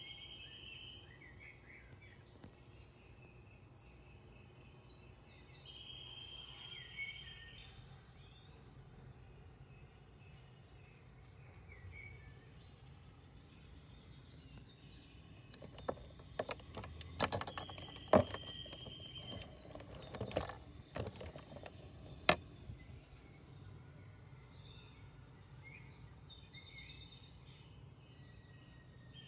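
Birds chirping with short repeated high trills, and in the middle a run of sharp clicks and knocks of hard plastic toy-kitchen parts being handled.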